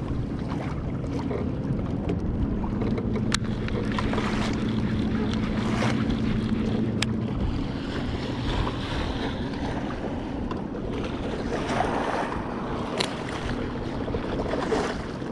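Wind buffeting the microphone over lapping water, with a steady low hum through roughly the first seven seconds and a few sharp clicks.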